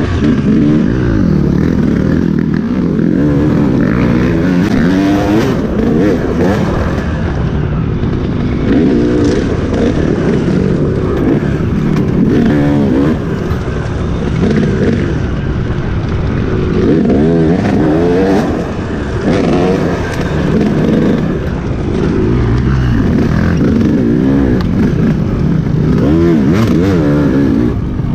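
Enduro dirt bike engine revving up and down without a break as it is ridden, its pitch rising and falling with the throttle, with a few sharp knocks near the end.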